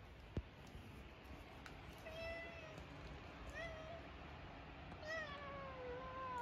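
Domestic cat meowing three times, the last meow the longest and sliding down in pitch. A single sharp click comes just before the meows.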